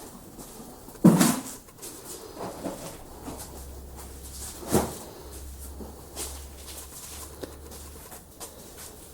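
Wood fire burning in a fireplace insert, with scattered crackles and two louder knocks, one about a second in and one near the middle.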